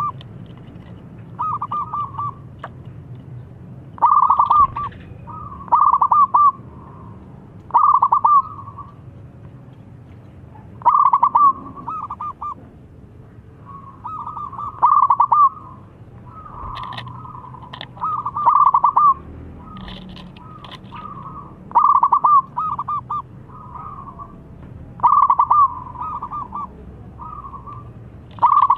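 Zebra dove (perkutut) cooing in full song: short rippling phrases of quick coo notes, each about a second long, repeated every couple of seconds.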